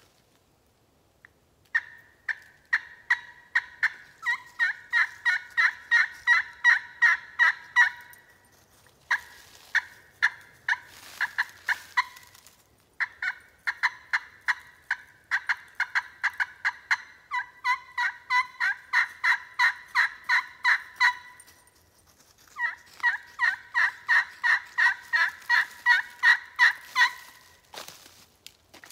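Slate-over-glass turkey pot call in a walnut pot, run with a purpleheart striker, playing four long runs of rapid turkey yelps, about three or four notes a second, each note breaking between a lower and a higher pitch. The purpleheart striker gives a sharper, higher-pitched, more excited yelp that cuts more than a hickory striker.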